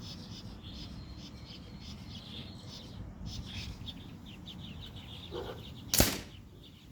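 A single shot from a CP1 PCP air pistol about six seconds in: a sharp crack with a brief ring after it. Before it, a low steady background with faint high chirps.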